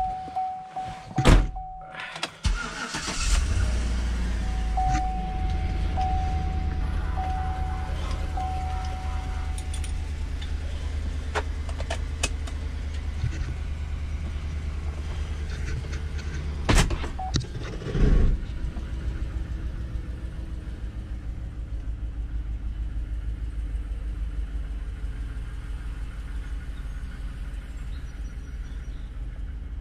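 A slam, then the 2011 Chevrolet Suburban's 5.3-litre V8 cranks and starts about two and a half seconds in, its first start after the engine mount and oil-leak repair, and runs steadily. A dashboard warning chime dings over the first several seconds, and two sharp knocks about a second apart come just past halfway.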